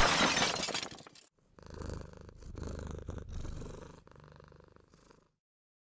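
The last of the music fades out over the first second. A cat then purrs, the purr rising and falling about three times before it stops.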